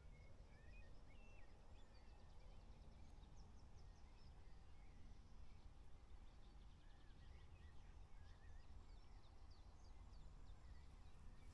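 Near silence: faint outdoor ambience of scattered distant bird chirps over a low steady rumble.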